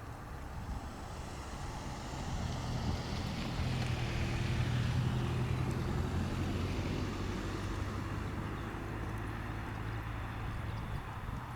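Boeing 737-800's CFM56-7B jet engines running at taxi power, a steady low hum with a whooshing hiss that grows louder to a peak about halfway through, then eases slightly.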